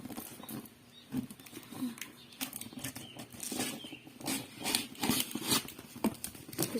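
Faint, irregular clicks and rustles of a parcel being handled and opened by hand.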